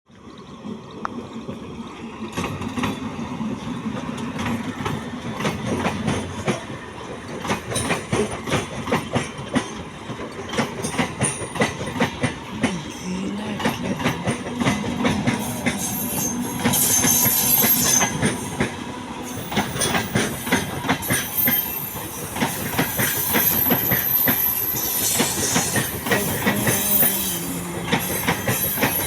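Train running on the rails, its wheels clattering over rail joints in a continuous clickety-clack. A high-pitched wheel squeal comes in at times, in the middle and again near the end.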